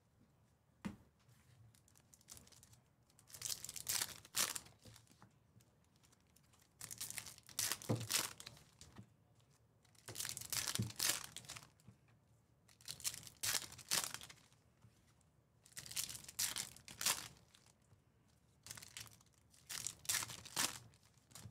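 Foil trading-card pack wrappers crinkling and tearing open, in about six short bursts spaced a few seconds apart.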